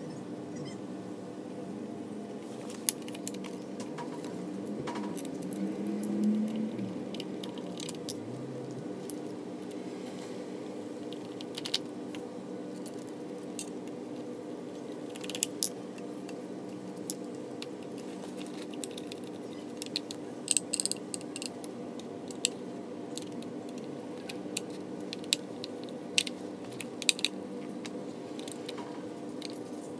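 Metal tools and parts clicking and clinking as a screwdriver works at the brush holders and springs in the brush end housing of a brushed 48 V golf cart motor. The sharp clicks come at irregular moments, several close together about twenty seconds in. A steady low hum runs underneath, and a brief rising sound comes about six seconds in.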